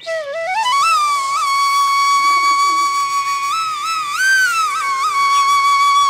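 Background flute music: a single melodic line that slides up into a long held note, with a few short ornamental turns and bends, falling away near the end.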